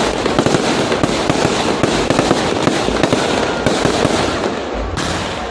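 Fireworks going off in a dense, continuous run of rapid crackling bangs.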